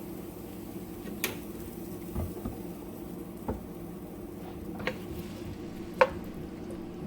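A utensil knocking against a cooking pot of chopped onion in oil: about six short, scattered knocks over a steady low hum.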